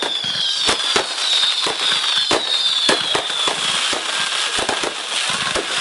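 Fireworks going off: a fast run of sharp bangs over steady crackling, with several high whistles sliding slowly down in pitch over the first few seconds.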